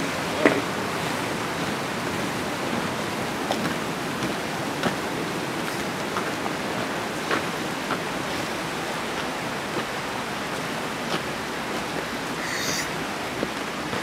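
Steady rushing of a waterfall and its creek, with scattered footsteps on snowy, gravelly ground and a short high chirp near the end.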